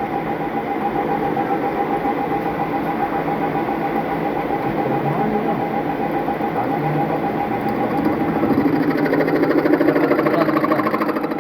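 Metal lathe running steadily under power with a constant motor whine, switched on just before. It gets louder and rougher from about eight seconds in.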